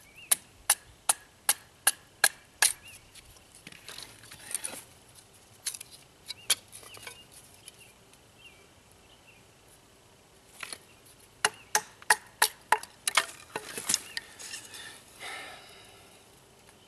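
Firewood being split down with a bushcraft knife: two runs of sharp wooden knocks, two or three a second, one at the start and another from about two-thirds in. Lighter scattered taps and clicks come between, and there is a brief scrape near the end.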